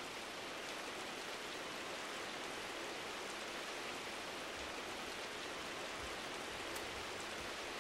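Steady rain falling, an even hiss that doesn't let up.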